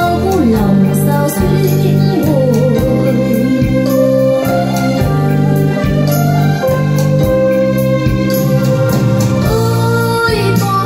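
A song played back through a pair of JBL TLX 16 three-way loudspeakers: sustained organ-like keyboard chords, a sung melody line and a steady beat.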